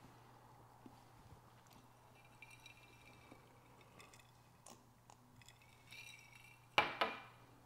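Quiet handling sounds, then about two-thirds of the way in a drinking glass is set down on a granite countertop with two sharp knocks, a clink of glass on stone.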